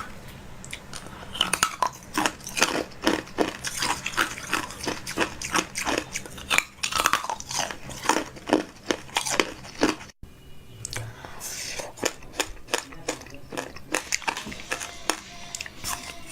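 Close-up crunching and chewing of crisp food, a quick run of sharp crunches. About ten seconds in the sound drops out briefly, and after that the crunches are sparser and softer.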